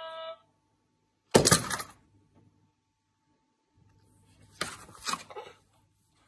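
A plastic electronic baby toy finishes a short electronic tone. About a second and a half in there is one loud plastic clatter as the toy falls or is banged down, and a few lighter knocks come near the end.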